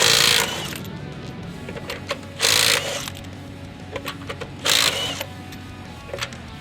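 Milwaukee M12 Fuel stubby 3/8" cordless impact wrench running in reverse, hammering in three short bursts about two seconds apart as it breaks loose lug nuts torqued to 154 ft-lb. Light clicks come between the bursts, over background music.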